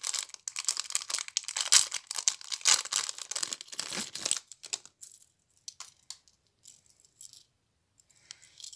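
Hard-plastic wobbler fishing lure handled and shaken, its internal rattle balls clattering rapidly along with crinkling of its plastic bag for about four and a half seconds; after that only a few faint handling clicks.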